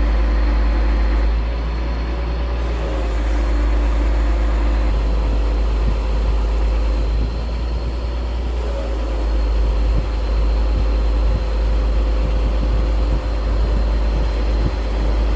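A crane's engine running steadily with a heavy low rumble, its pitch lifting slightly now and then.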